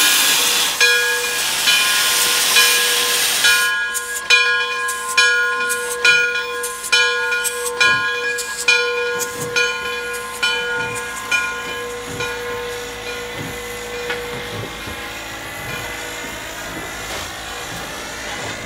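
Frisco 1630, a 2-10-0 steam locomotive, pulling away slowly: a loud hiss of steam from the open cylinder cocks, then evenly paced exhaust chuffs about one a second over a steady tone that stops about three quarters of the way through. The sound fades as the engine passes and moves off.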